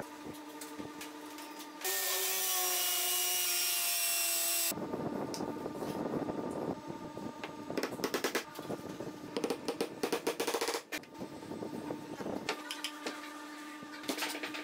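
A run of woodworking sounds: a loud steady hiss for about three seconds, then long runs of sharp knocks as a mallet taps a wooden dowel into a pine board, then a cordless drill driving screws into the wood near the end.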